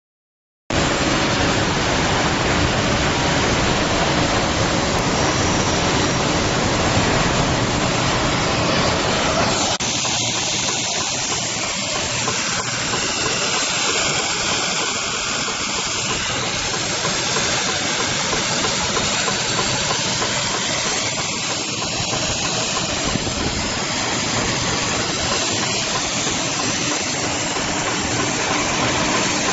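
Industrial bag sewing machine running, heard as a steady hissing, whirring machine noise. The sound changes character about ten seconds in.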